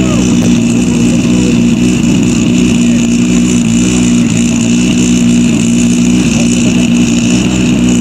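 A vehicle engine running steadily at idle, close by, its pitch holding level without revving.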